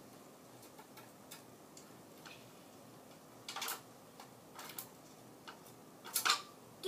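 Scattered light clicks and taps at irregular intervals, with a couple of slightly louder, longer scraping strokes about halfway through and near the end.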